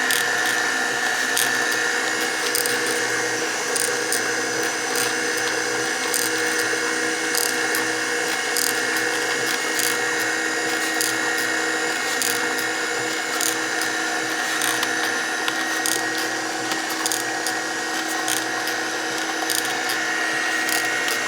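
Electric juicer running steadily while produce is fed through it: a constant motor hum holding several steady tones, with sharp clicks every second or so.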